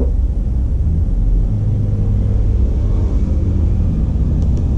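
A steady low rumble, with two faint clicks near the end.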